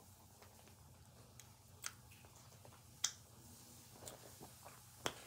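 Wet lip smacks and mouth clicks from someone eating and licking sauce off her fingers: about half a dozen short, sharp smacks, the loudest about three seconds in.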